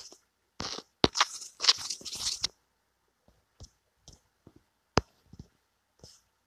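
Handling noise picked up by the phone's microphone while the screen is being used: a rustling, crunchy scrape lasting about two seconds shortly after the start, then scattered sharp taps, the sharpest about five seconds in.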